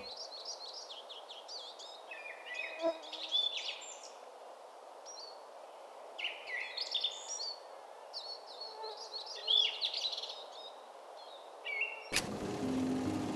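Small songbirds singing in short chirping phrases that come and go every second or two over a faint steady outdoor hiss.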